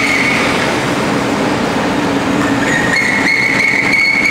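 Continuous sesame seed roasting machine running: a steady, loud mechanical rattle and hum. A high whine fades about half a second in and returns near the end.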